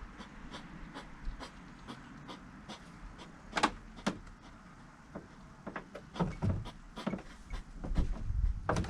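Hedgehog crunching sunflower seeds: a run of small, irregular clicks and cracks, with a few louder crunches and low knocks in the second half.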